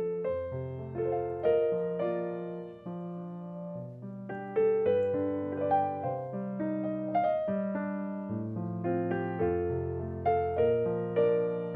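Solo piano background music playing a slow melody over held low bass notes.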